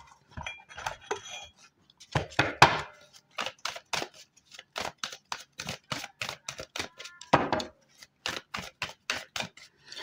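A deck of tarot cards being shuffled by hand: a quick, even run of card slaps and taps, about four a second.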